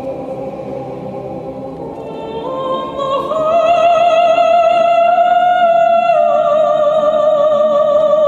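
Church choir singing, with one soprano voice climbing in steps above the choir about two and a half seconds in to a loud, high held note with vibrato. The note steps down a little about six seconds in and is held.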